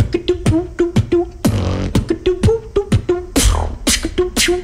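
Beatboxer performing into a microphone: rapid kicks and clicks under a short hummed bass note that repeats between the hits, with a longer hissing snare about a second and a half in and another just past three seconds.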